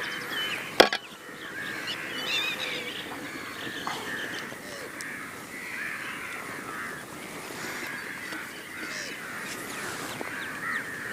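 Many birds calling and chattering continuously, with overlapping warbling calls, and a single sharp click a little under a second in.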